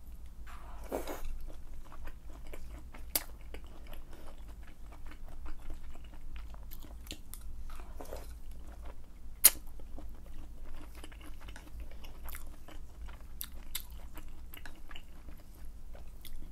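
Close-miked chewing of slippery wide glass noodles in mala broth: wet mouth clicks and smacks throughout, with a noisy slurp about a second in and another near eight seconds, and one sharp click near the middle.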